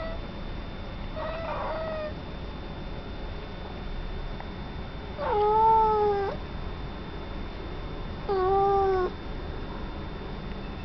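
Domestic cat meowing at birds on the other side of a window: two faint meows near the start, then two longer, louder meows about five and eight seconds in.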